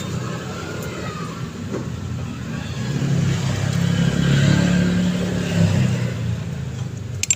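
Electric hand drill running under load, boring into a broken exhaust bolt, its steady motor drone growing louder in the middle. A sharp click near the end.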